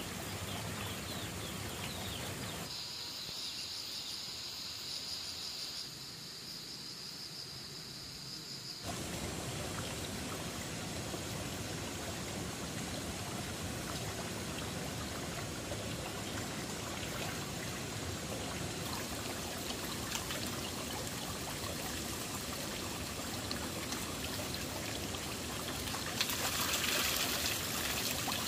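Water trickling and pouring steadily, with a steady high buzz for several seconds near the start.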